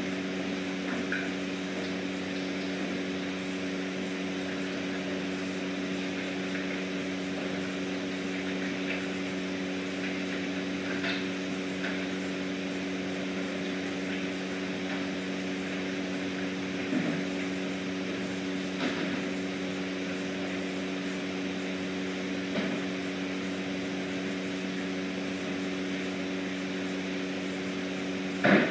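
Steady low mechanical hum with an even drone, with a few brief faint clicks and taps scattered through it.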